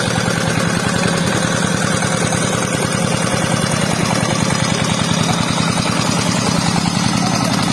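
Two-wheel walking tractor's single-cylinder diesel engine running steadily under load while it drives a rotary tiller through the soil, with a fast, even chugging beat.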